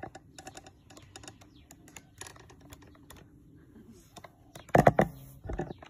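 Quick, irregular little clicks and smacks, the mouth noises of an old man chewing with no teeth. A couple of louder short noises come near the end.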